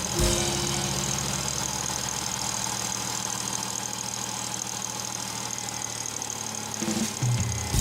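Car engine idling steadily, with the engine running so the newly fitted coolant temperature sensor can be watched for leaks.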